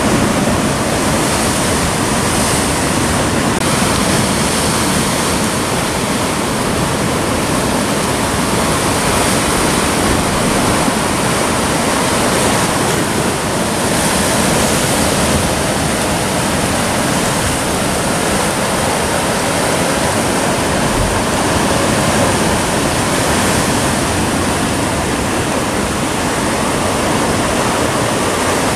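Steady, loud rush of sea surf breaking against a rocky volcanic shore.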